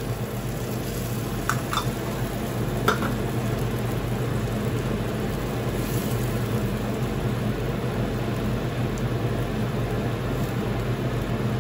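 Shrimp stock sizzling and simmering in a frying pan of squid and shrimp as it is stirred with a plastic spoon, with a few light clicks of the spoon in the first few seconds. A steady low hum runs underneath.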